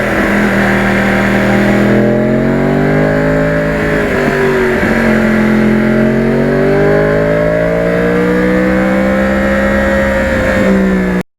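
2009 Yamaha R1's crossplane inline-four engine running under way, its pitch rising and falling with the throttle, with a short dip in pitch a little before halfway.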